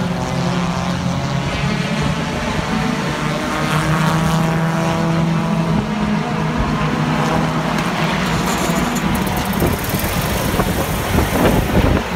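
Hobby stock race cars running laps on the oval, their engines a loud, continuous drone, with pitch rising and falling as cars pass.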